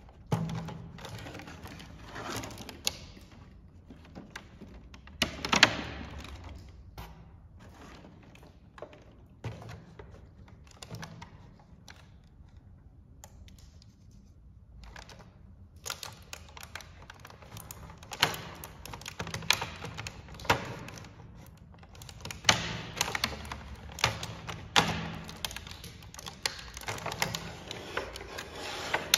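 Thin clear plastic blister packaging and its plastic bag being handled: crinkling and crackling with many sharp clicks and knocks. A quieter spell comes about halfway through, then the clicking grows busier.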